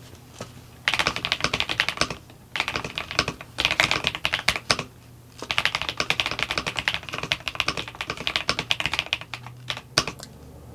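Royal Kludge S98 mechanical keyboard being typed on fast, a dense clatter of key clicks in three runs with short pauses between, ending in a few single keystrokes.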